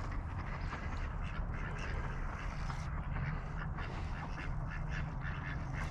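Mallard ducks quacking repeatedly over a steady low rumble.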